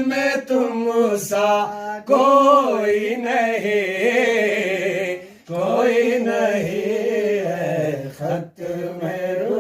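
A solo voice sings an Urdu naat refrain unaccompanied, in long, drawn-out, ornamented notes, breaking off briefly three times for breath.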